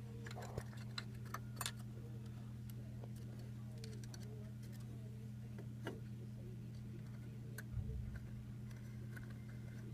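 Scattered small clicks and ticks of a Phillips screwdriver and hands working screws back into a small plastic device housing, over a steady low hum.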